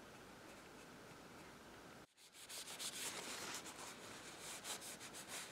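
Fingertip buffing a dried gold touch-up on the painted wood edge of a table leg: after about two seconds of faint room tone, a quick run of short rubbing strokes.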